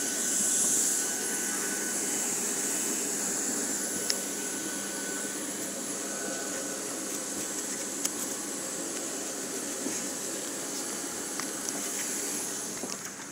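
Steady high-pitched whine and rush of an airliner's turbine running on the ground, with a few light knocks over it.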